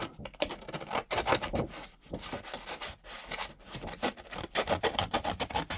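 Small multitool scissors snipping through heavy paper, a busy run of crisp snips with the crinkle of the paper, pausing briefly twice.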